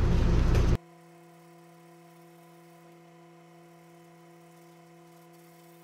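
Loud, steady background noise cuts off abruptly under a second in, leaving only a faint steady hum made of several fixed tones. The sanding is not heard.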